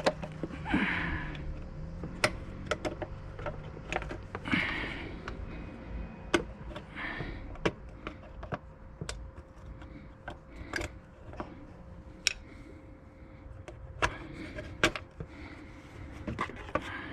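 Hand tools working on car parts: scattered sharp clicks and knocks of a flat screwdriver against metal and plastic, with a few short scrapes, over a faint steady hum.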